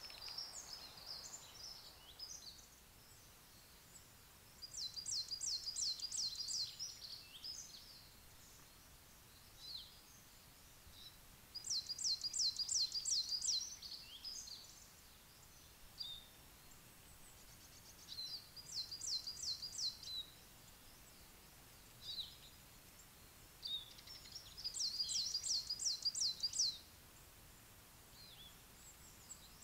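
A songbird singing in the wood: four song phrases, each a quick run of about eight high, rising notes lasting about two seconds, repeated every six or seven seconds, with softer chirps between.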